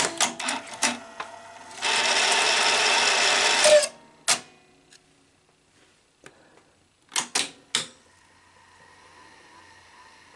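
Mechanism of a Sony SL-5000 Betamax video cassette deck being operated with its cover off: a series of sharp mechanical clicks, then a loud steady whir lasting about two seconds, then more clicks near the end.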